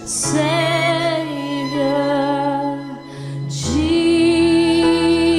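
Worship music: a woman singing long, wavering sustained notes without clear words over held keyboard or pad chords, taking a breath about a second before the notes restart, about three and a half seconds in.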